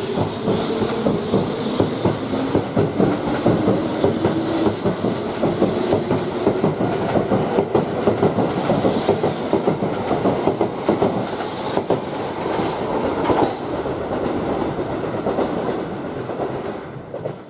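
Kintetsu 21000 series Urban Liner Plus limited express electric train running along the platform, its wheels clattering steadily over the rails, with a motor whine rising in pitch over the first few seconds as it picks up speed.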